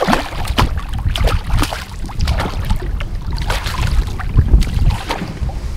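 A hooked pike thrashing at the surface beside the boat, sending up many sharp, irregular splashes over a steady low rumble of wind and water.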